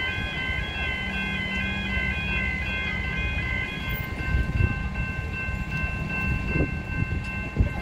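Level crossing bells ringing in a quick alternating pattern over the low rumble of a suburban electric passenger train running past. About four seconds in the rumble drops away and the bells hold a steadier ring, with a few sharp knocks near the end.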